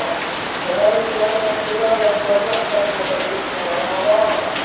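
Heavy rain falling steadily onto leaves and a corrugated roof. A wavering, drawn-out tone sounds under the rain about a second in and again near the end.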